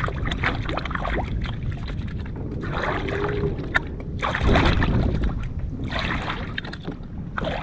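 Water splashing and trickling in several short bursts beside a kayak as a caught fish is let go by hand, over a steady low wind rumble on the microphone.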